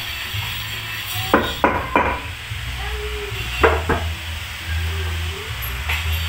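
Sharp knocks on the wooden staircase railing, mostly in pairs, about five of them between one and four seconds in, with one fainter knock near the end. Background music with a steady beat plays underneath.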